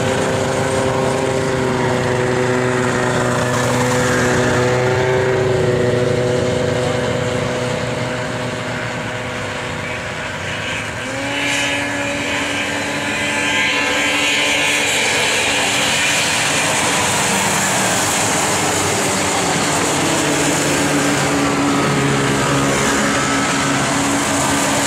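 A pack of racing snowmobiles' two-stroke engines running hard, several engine tones overlapping and shifting in pitch. The sound eases off about eight to ten seconds in, then swells again as the sleds come back around.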